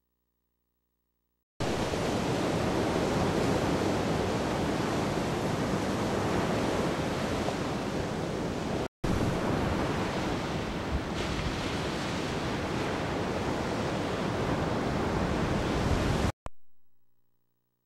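Ocean surf: a steady rush of breaking waves, heard as an even, dense noise that starts abruptly about a second and a half in, drops out for an instant at a cut around the middle, and stops abruptly near the end.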